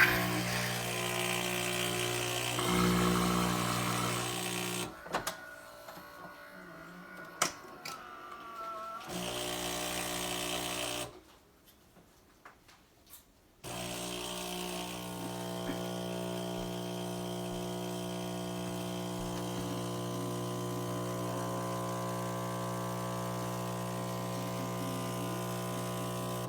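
Philips Saeco PicoBaristo super-automatic espresso machine running through a brew cycle: a steady mechanical hum that stops and restarts, with a few clicks in a quieter stretch, then runs steadily for the last twelve seconds.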